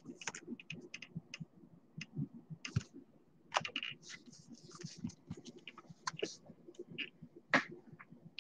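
Trading cards and a clear plastic card sleeve handled close to the microphone: irregular light clicks and taps, with short rustles of plastic and card stock, a busier cluster of rustling about three and a half to five seconds in.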